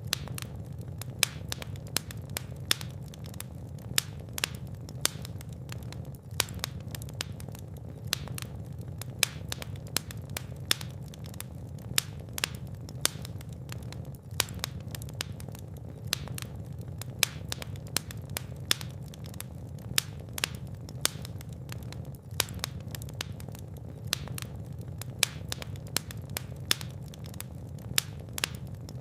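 Fire in a fireplace crackling, with irregular sharp snaps and pops several times a second over a steady low rumble of the flames.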